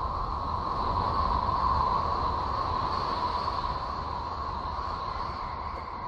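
Eerie steady space drone presented as the sound of the planet Uranus: a rushing hiss with a steady whistling tone and a deep rumble beneath. It is the kind of track made by turning spacecraft radio data into sound.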